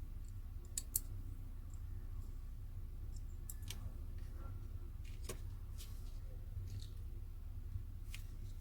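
A few sharp, irregular clicks and taps from the parts of a disassembled smartphone being handled, the loudest about a second in, over a steady low hum.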